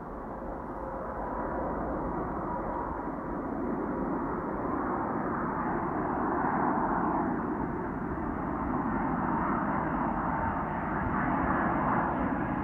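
Twin jet engines of a Boeing 777 airliner on landing approach: a steady rushing noise with a thin whine, growing louder over the first couple of seconds as the plane comes closer overhead.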